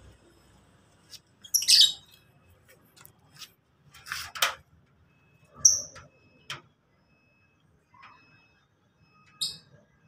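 Lovebirds calling in an aviary: about six short, shrill chirps and squawks at irregular intervals, the loudest in the first half.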